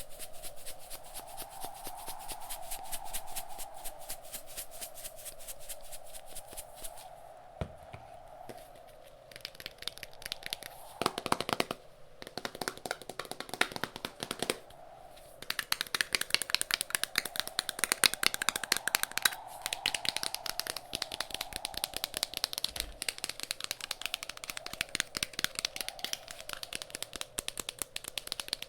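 Fast, close-miked ASMR tapping, many light clicks a second with brief pauses, over a background wind track that howls and swells slowly up and down in pitch.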